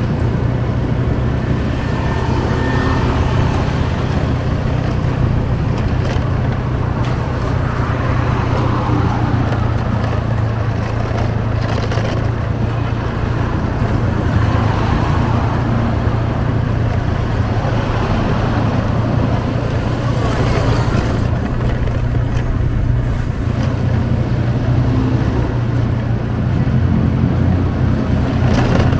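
Steady road traffic noise: cars and other vehicles running along a city street, with a continuous low hum of engines and tyres.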